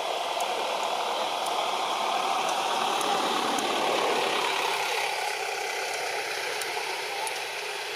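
Engine noise of a motor vehicle passing, swelling to a peak about halfway through, then fading as its pitch drops.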